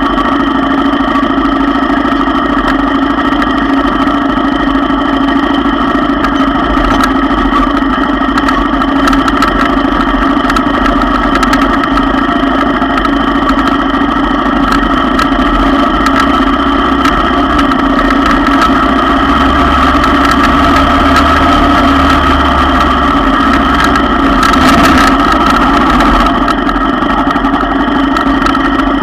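ATV engine running steadily while the quad creeps over a rocky trail, with scattered knocks through it.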